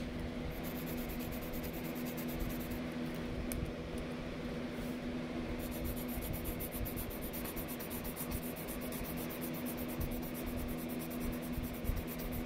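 Mechanical pencil scratching across sketchbook paper, shading in strokes, over a steady low hum.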